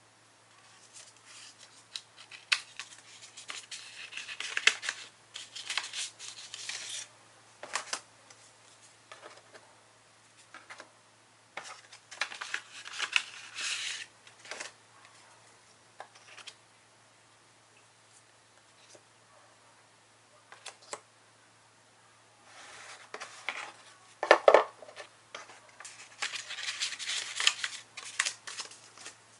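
Paper rustling and sliding as a kraft-paper envelope is handled and stickers are drawn out of it, in three spells of crisp handling noise with short quiet gaps between them. A sharper knock about three-quarters of the way through is the loudest moment.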